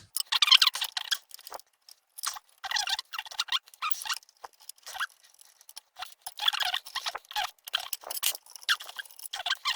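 Screws being worked out of a lathe motor's sheet-steel back cover with a screwdriver: a run of short, irregular scratching and squeaky metal-on-metal bursts with brief pauses between them.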